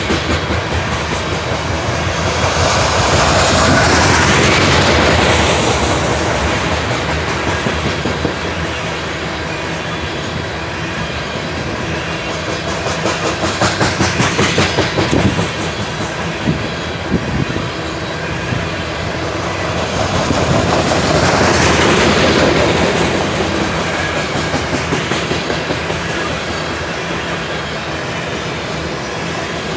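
Loaded freight train of coal hopper cars rolling past, a steady rumble with the rhythmic clickety-clack of steel wheels over rail joints, swelling louder three times as cars go by.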